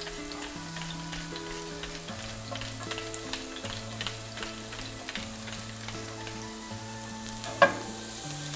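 Sliced garlic sizzling in olive oil in a frying pan: a steady hiss with small crackles and pops, over soft background music with held notes. A brief louder sound comes near the end.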